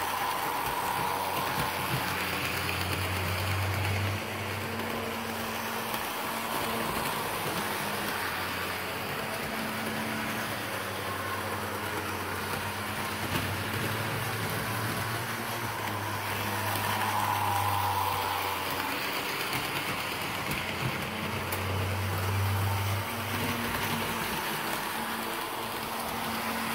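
HO-scale model diesel locomotives running on the layout track: a steady electric-motor whir and the rattle of wheels on rail, which swell and fade several times as the trains come closer and pass away.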